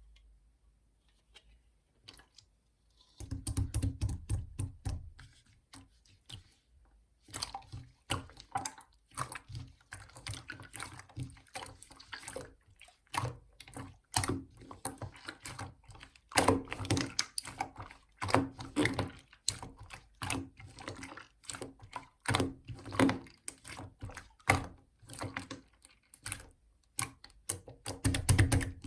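Clear slime being squeezed and pressed by hand, making irregular wet clicks and pops, starting about three seconds in.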